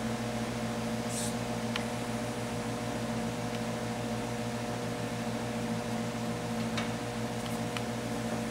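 A steady electrical hum with a few faint, scattered clicks as a spark plug is worked out of a 750 Triumph twin's cylinder head.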